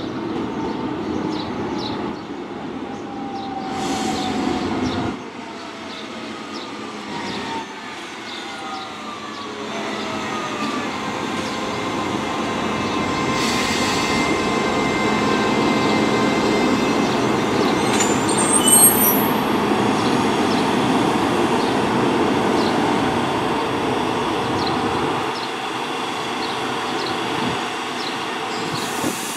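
Electric suburban train running on the line, growing louder toward the middle, with a falling motor whine in the first ten seconds or so and a brief high-pitched wheel squeal about two-thirds of the way through.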